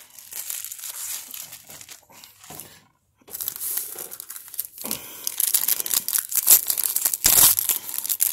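Foil trading-card pack wrappers rustling as packs are handled, then a foil pack wrapper crinkling and tearing as it is ripped open. There is a short pause about three seconds in, and the crinkling is loudest near the end.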